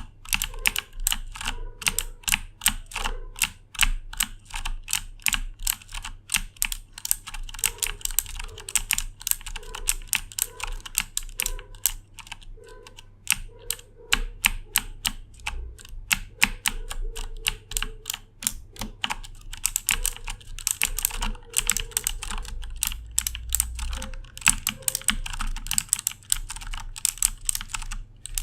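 Fast, continuous typing on a Corsair K70 mechanical keyboard with clicky Cherry MX Blue switches.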